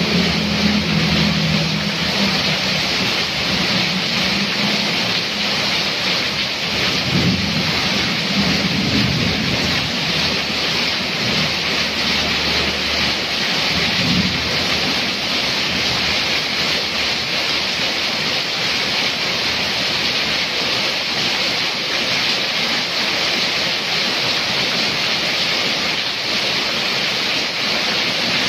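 Heavy rain pouring down in a steady, dense hiss onto a street and off a roof edge. A motorbike passes through the standing water near the start, and others pass briefly in the first half.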